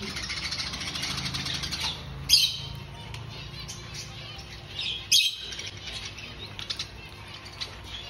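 A cage full of budgerigars chirping and chattering, thick for the first two seconds and thinner after, with two loud sharp calls standing out, about two seconds in and again about five seconds in.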